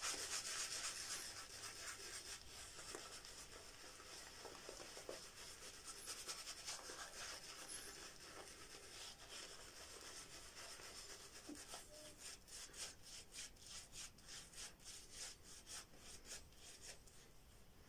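Horsehair shaving brush face-lathering wool fat shaving soap on a week's beard growth, building the lather: quiet, wet rubbing and brushing strokes, settling into a steady rhythm of about two strokes a second in the second half.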